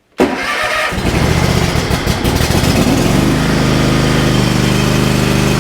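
Twin-cylinder engine of a Toro TimeCutter SS5000 zero-turn mower starting: a brief crank that catches within about a second, picks up speed, and settles into steady running about three seconds in.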